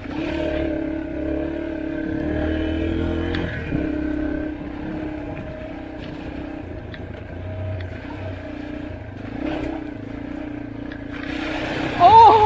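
Dirt bike engine running at a steady cruise on a gravel trail, its pitch rising and falling a little with the throttle. About eleven seconds in, the tyres splash through a large puddle with a rush of spray.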